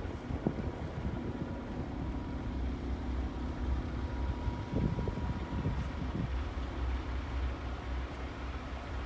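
Paccar MX-13 diesel of a Peterbilt 389 idling steadily, a low rumble, with a few soft thumps a little past the middle.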